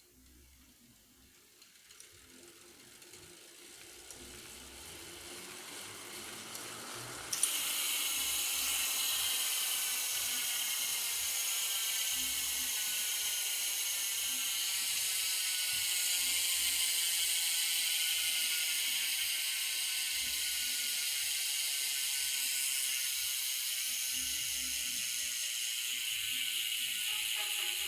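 Xenium AM-82 bicycle hub freewheeling, its pawls ratcheting as a fast, dense buzz. The buzz grows over the first few seconds, jumps up suddenly about seven seconds in, then slowly falls in pitch as the wheel spins down.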